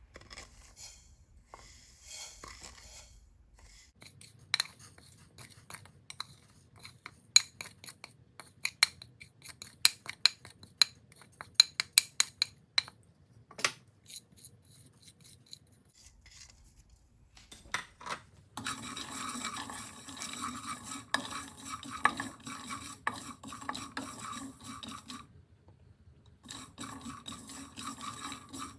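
Kitchen utensils at work: a run of sharp clinks and taps for several seconds, then a steady scraping rustle like stirring in a pan, which stops and starts again near the end.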